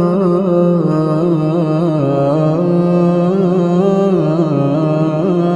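Quran recitation in melodic tajweed style: one voice holding a long, slowly ornamented vowel of the drawn-out opening letters 'Alif Lam Mim', without a break.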